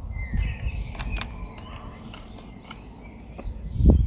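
Small birds chirping repeatedly over a low rumble on the microphone, with a few heavy low thumps near the end.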